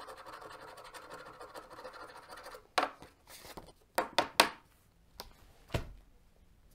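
Scratch-off lottery ticket having its coating scratched away: quick, continuous scratching for about two and a half seconds, then a handful of separate short strokes.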